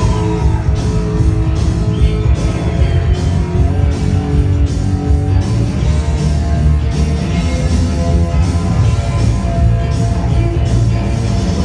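Loud dance music with heavy bass, played through a sonido DJ sound system.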